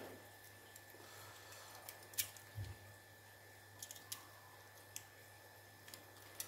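Faint, scattered small clicks and scrapes of a small screwdriver prying at a seized battery contact inside a wireless microphone's battery compartment, with one low knock a little over two seconds in. A faint steady hum runs underneath.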